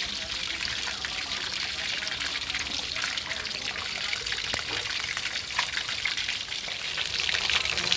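Marinated queenfish fillets frying in oil in a steel wok over low heat: a steady sizzle scattered with fine crackles and pops.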